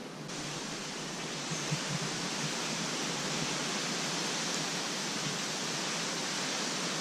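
Steady wind rushing over the microphone, a hiss that steps up louder about a third of a second in and then holds.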